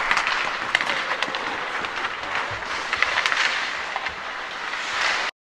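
Ice hockey play in a rink: a steady hiss of skates on the ice with frequent sharp clacks of sticks and puck. The sound cuts off suddenly about five seconds in.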